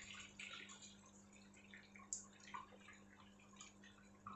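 Faint wet plops and soft scrapes of a silicone spatula stirring thick cashew-cream gravy in a kadhai, over a steady low hum.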